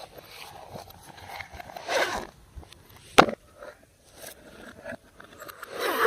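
Slime being squished and mixed by hand: sticky, crackling squelches that swell about two seconds in and again near the end, with one sharp pop about three seconds in.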